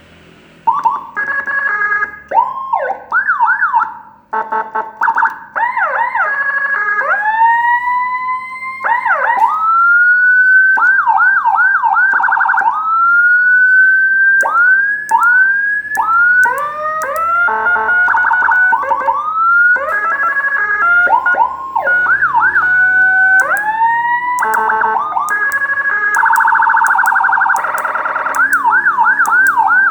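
Whelen HHS 200-watt electronic siren sounding through its tones, starting about a second in. It switches every second or two between slow rising wails, quick repeated yelps and short steady blasts, with a denser, rougher tone a few seconds before the end.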